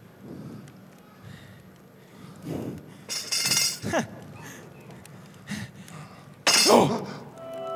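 A person's breathy vocal sounds: about three drawn-out groans that fall steeply in pitch, each with a hissing breath, the loudest near the end.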